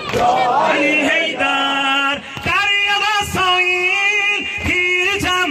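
A male meddah singing an Ashura mourning lament, holding a series of long, steady notes with brief breaks between them, after a wavering, ornamented phrase at the start.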